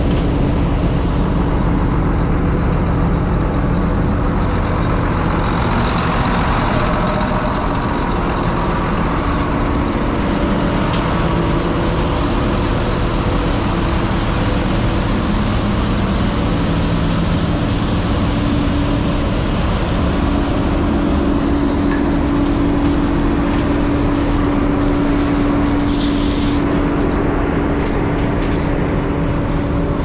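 Heavy diesel farm machinery running steadily, with an even low drone and a steady hum, and a few short clicks near the end.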